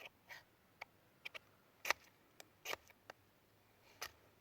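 A fire striker being scraped, one stroke at a time, to throw sparks onto tinder when lighting a fire. The strokes come as faint, short scrapes and clicks scattered irregularly, the clearest about two seconds in and shortly after.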